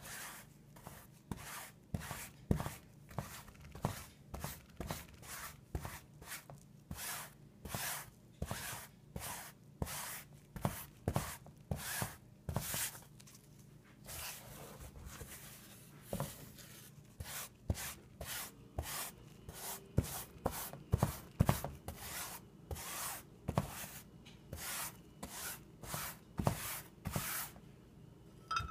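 Paintbrush wet with watered-down indigo dye being stroked back and forth across cotton fabric: a run of short scratchy brushing strokes, about two a second, with a brief pause about halfway.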